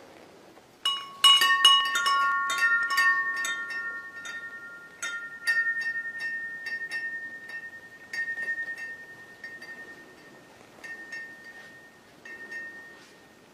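Hanging metal tube wind chime ringing. It starts with a sudden, loud jangle of strikes about a second in, and several clear tones die away slowly. Weaker rounds of strikes follow a few more times.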